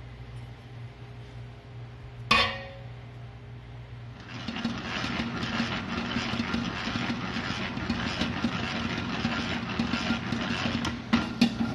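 A single sharp metallic clank with a brief ring about two seconds in. About four seconds in, a commercial spiral dough mixer starts and runs steadily at low speed, its motor and hook working a stiff brioche dough in the steel bowl.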